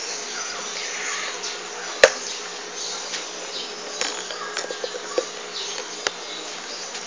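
Insects buzzing and chirping steadily in the background, with one sharp click about two seconds in.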